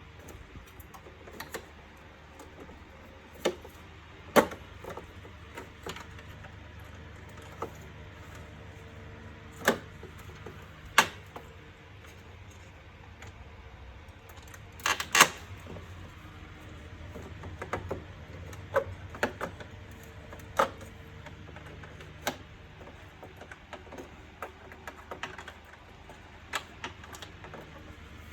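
Irregular sharp clicks and knocks of vacuum cleaner housing parts being handled and fitted together during assembly, the loudest a quick double knock about halfway through, over a steady low hum.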